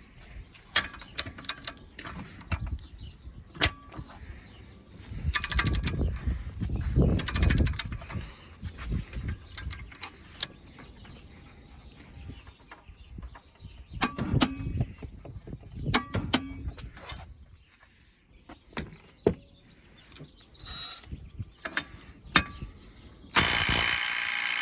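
Scattered clicks and knocks of tools and metal being handled, then near the end an impact wrench starts hammering loudly on a bolt torqued to 175 foot-pounds, trying to break it loose.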